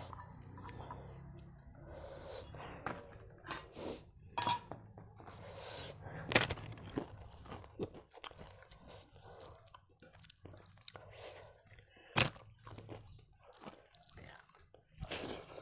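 A person chewing and crunching food in irregular bites, several crisp crunches standing out above the rest, from a dry papad (lentil wafer) eaten with rice and meat.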